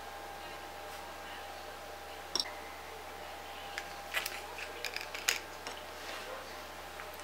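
Scattered light clicks and taps of small items handled on a tabletop: one sharp click about two and a half seconds in, then a cluster of small taps between about four and six seconds. Under them runs a steady faint hum with a thin steady tone.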